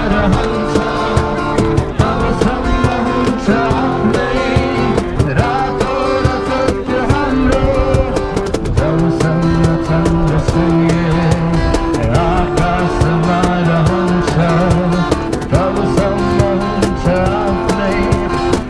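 Live acoustic music: two acoustic guitars strummed together with a cajón keeping the beat under a lead singer's voice.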